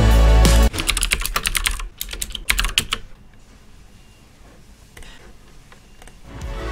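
Typing on a computer keyboard: a quick run of key clicks lasting about two seconds, then quieter, with a single faint click later. Background music stops just before the typing and fades back in near the end.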